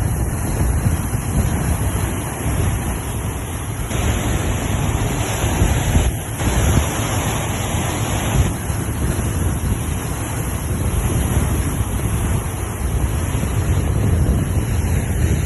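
Sea waves breaking and washing, with wind buffeting the microphone as a low rumble. A brighter, louder rush of surf comes about four seconds in and fades a few seconds later.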